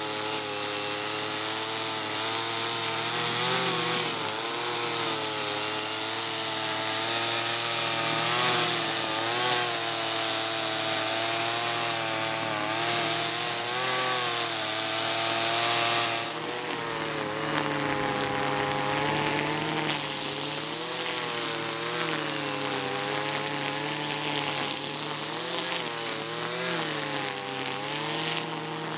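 Husqvarna 323R two-stroke brushcutter running at high revs, its engine pitch dipping and recovering over and over as the cutting head works through tall, dense dandelions and couch grass. About halfway through the engine note settles somewhat lower and keeps wavering under load.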